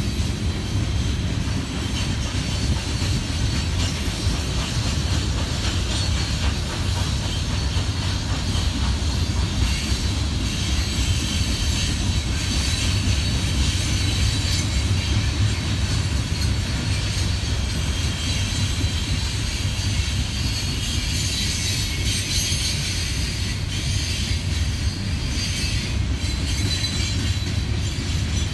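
A long freight train of open-top hopper cars rolling past at steady speed. Its wheels on the rails make a continuous low rumble with a high hiss and squeal, and occasional clacks over rail joints.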